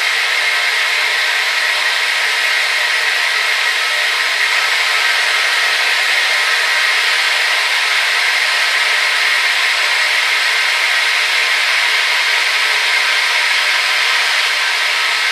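Hair dryer running steadily: a loud, even rush of air with a motor whine, strongest in the upper middle and with almost no low rumble.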